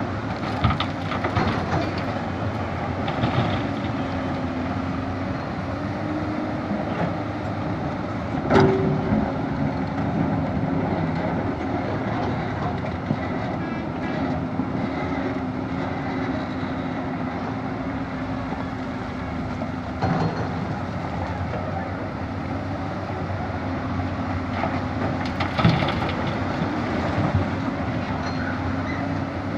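Hyundai R215LC-7 crawler excavator working: its diesel engine runs steadily, its pitch wavering slightly as the hydraulics take load. A few sharp clunks of stone come through, the loudest about eight and a half seconds in.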